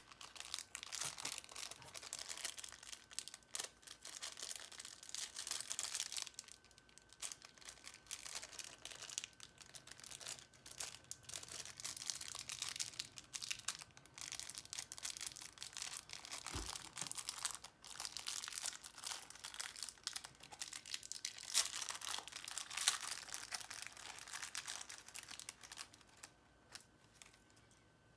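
A plastic bag crinkling and rustling in fits and starts, with short pauses, as it is worked at by hand to get it open.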